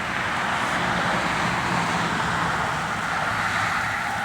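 Steady road-traffic noise: an even rushing hiss with a faint low hum underneath.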